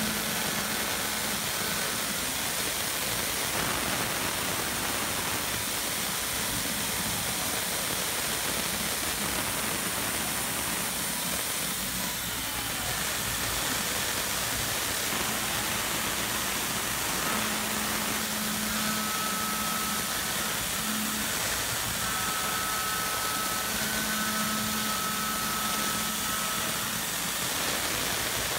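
Tormach PCNC 770 CNC mill's spindle running an end mill through aluminium as it cuts a clamp recess, over a steady hiss of mist coolant. Faint cutting tones come and go as the tool moves around the pocket, most often in the second half.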